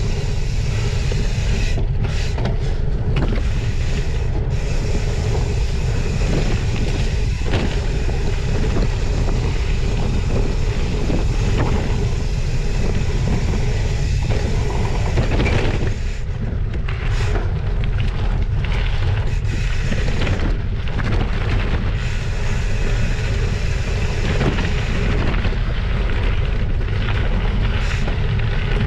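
Wind buffeting the microphone as a gravel bike descends at speed, a steady low rumble, with the 40 mm Maxxis tyres crunching over dirt and gravel and the bike rattling in frequent small knocks.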